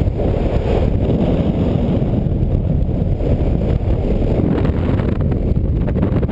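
Wind rushing and buffeting over the camera microphone of a paraglider in flight, a loud, steady low rumble.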